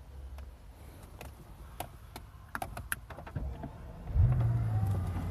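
Mercedes-Benz S600's twin-turbo V12 cold-starting: a few light clicks, then about four seconds in the engine catches with a brief loud flare and settles into a steady idle.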